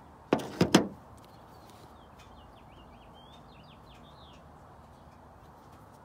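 A few sharp clacks in quick succession about half a second in, then faint birds chirping in the background.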